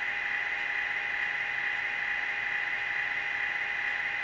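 A model locomotive's Digitrax SDH164D sound decoder playing a steady diesel idle through its small cab speaker. The sound is an even, hissy hum with no changes.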